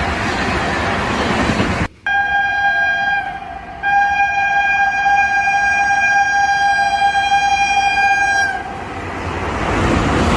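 WAG-9HC electric locomotive's horn: a short blast about two seconds in, then after a brief dip a long steady blast of about five seconds. The rushing noise of the train running through at speed comes before the horn and swells back after it.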